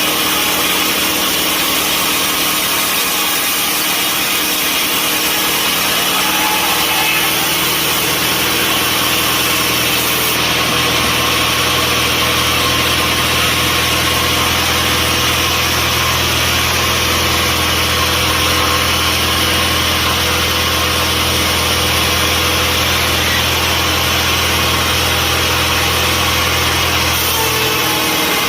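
Sawmill machinery running steadily. A deep hum joins in about a quarter of the way through and stops shortly before the end.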